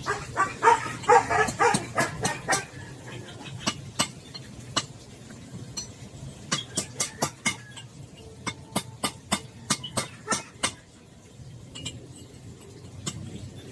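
A dog barks repeatedly for the first couple of seconds. Then come many short, sharp metal taps in quick clusters as a copper bushing is worked into a worn car door hinge.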